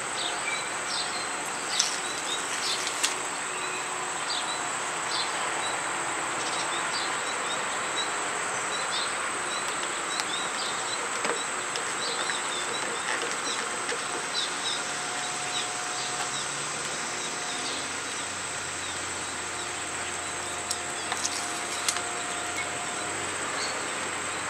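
Steady high-pitched insect drone with scattered short bird chirps. A few small clicks come about two and three seconds in and again near the end, as the plastic clamshell grip covers are handled and fitted over the motorcycle's handlebar grips.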